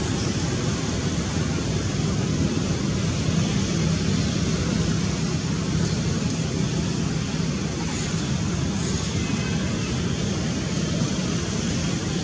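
Steady low rumbling background noise with a faint hum, unchanging throughout.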